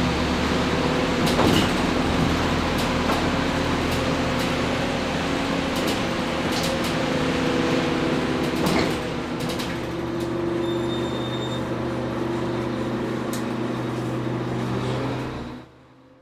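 Interior of a city bus on the move: steady engine hum and road noise with loose rattles and clicks, and a short electronic beep partway through. The sound fades out near the end.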